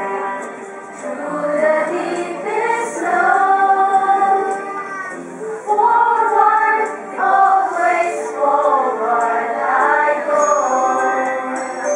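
A group of women singing together as a choir, with long held notes.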